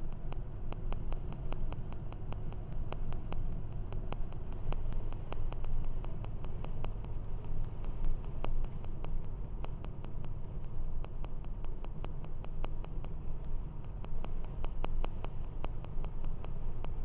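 Steady low rumble of a car's engine, tyres and wind, heard from inside the moving car's cabin.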